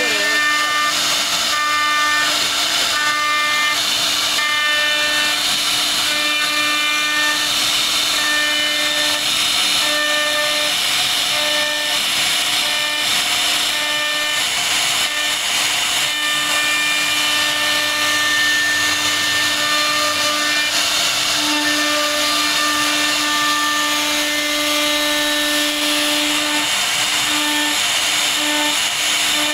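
CNC router spindle running with a steady high whine while its carving bit cuts a relief pattern into a wooden panel. A hiss of cutting goes with it, and the higher overtones come and go as the bit works through the wood.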